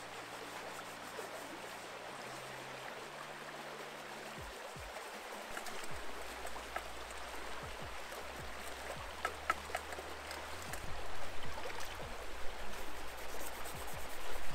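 Steady rush of running creek water, with scattered small clicks and knocks and a low rumble coming in about halfway through.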